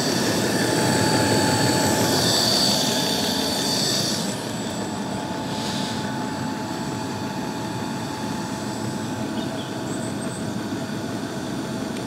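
Portable diesel air heater running: a steady whirring hum from its fans, a little louder for the first four seconds.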